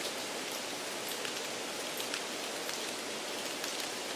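Steady rain-like background noise, an even hiss with scattered small ticks like drops.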